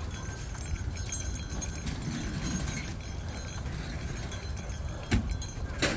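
Footsteps of a dog walk on a concrete sidewalk with the light jingle of the dog's collar tags, over a steady low rumble of the phone being carried; a few sharp clicks, one about a second in and two near the end.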